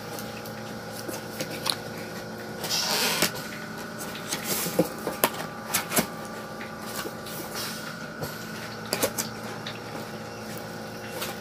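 A cardboard box being handled and folded by hand: scattered rustles, scrapes and light taps, with a longer rustle about three seconds in. Under it runs a steady machine hum.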